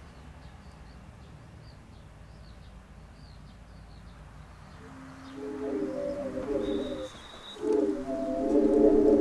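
Several low hooting notes held together, from ceramic wind instruments, come in about five seconds in, break off briefly and return louder. Before them there are faint high bird chirps.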